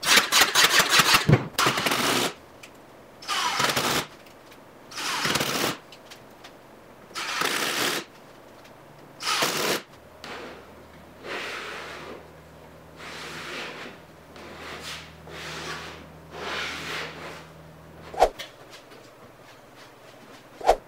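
Pneumatic brad nailer firing into plywood: a quick run of shots at first, then single loud shots about every two seconds. After that come softer bursts over a low steady hum, and two sharp knocks near the end.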